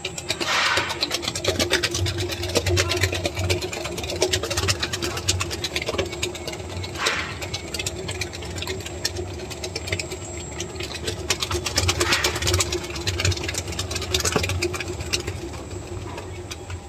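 Pritul Machines planetary mixer running, its beater creaming ghee and sugar for biscuit dough. A steady motor hum runs under a dense clatter from the beater, with a few louder swishes through the mix.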